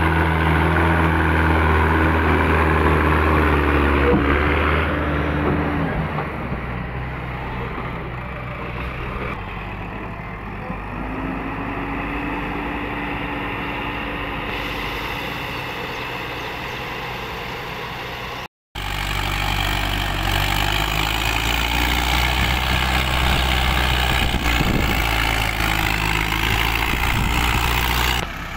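Diesel engines of a Mahindra Arjun 555 DI tractor and a JCB 3DX backhoe loader running steadily at working speed. The sound cuts out abruptly for a moment about two-thirds of the way through, then resumes.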